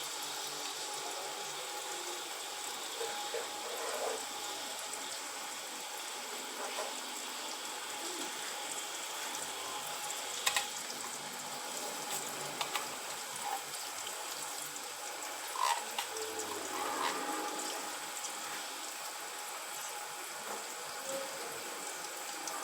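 Tomato paste and sliced onions frying in hot vegetable oil in a pot, a steady sizzle, with a few light knocks here and there.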